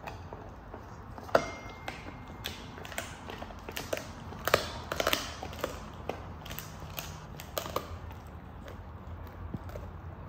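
Pit bull eating: irregular crunching and clicking of chewing, busiest in the middle, with a brief ringing clink about a second and a half in.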